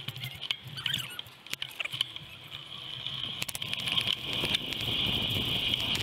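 Bicycle riding noise played back at double speed: short clicks and rattles from the moving bike over a high hiss of wind and path noise, which grows louder about halfway through.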